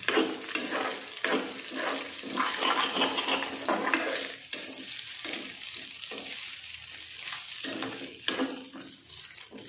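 Metal spoon stirring and scraping scrambled egg and spice powders around a hot metal kadai, with a steady frying sizzle and repeated clinks of the spoon against the pan.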